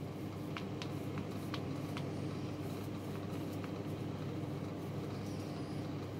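A small foam paint roller being rolled over a frame, with a few faint light clicks in the first couple of seconds. All of it sits over a steady low rumble.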